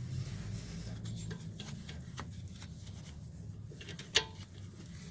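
Faint scattered clicks and light taps, with one sharper click about four seconds in, over a steady low hum.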